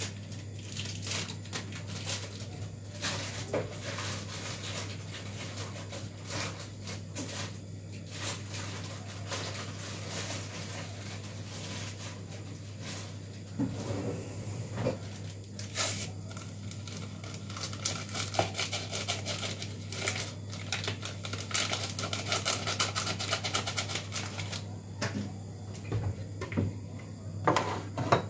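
Clicks, light knocks and rustling from kitchen items and packets being handled, with a stretch of rapid ticking in the second half, over a steady low hum.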